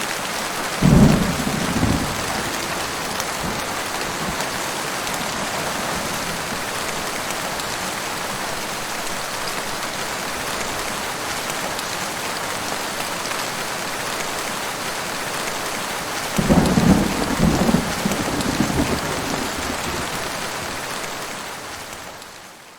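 Heavy rain falling steadily, with two thunder rumbles: a short sharp one about a second in and a longer rolling one from about two-thirds of the way through. The rain fades out near the end.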